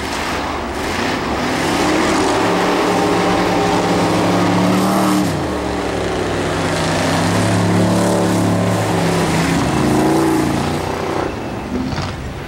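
Rear-wheel-drive ice race car's engine revving hard under acceleration. Its pitch climbs, drops sharply about five seconds in, climbs again, and falls away near the end.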